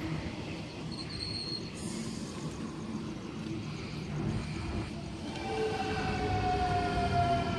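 Sydney Trains Millennium double-deck electric train rolling along the platform with a steady rumble of wheels on rails. From about five seconds in, the traction motors give a falling whine with several tones as the train slows.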